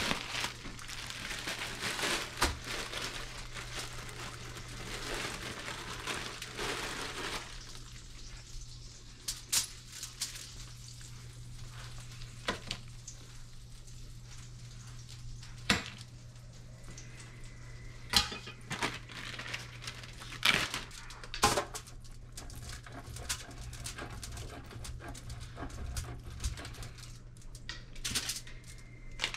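Counter-top food prep. For about the first seven seconds a plastic bag crinkles as it is handled over aluminium foil. After that come scattered light taps and knocks of a knife and butter on sourdough slices, over a low steady hum.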